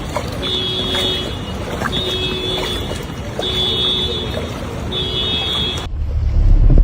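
An electronic alarm sounding a long beep about every second and a half over a steady rushing noise. Near the end it cuts to a loud low rumble of wind on the microphone.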